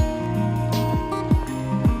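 Background music with a steady deep drum beat under held tones.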